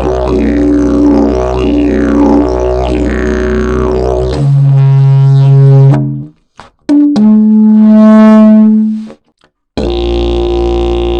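Fiberglass and prickly-pear-fibre double-slide didgeridoo played: a low drone with sweeping overtones, then two held higher notes, each breaking off into a brief silence, before the low drone returns near the end.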